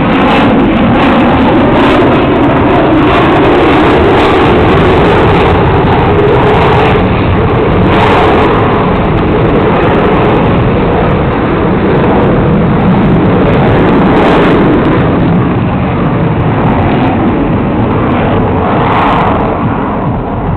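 Single-engine F-16 fighter jet's engine noise, a loud, steady rumble that runs without a break as the jet flies through its demonstration climb.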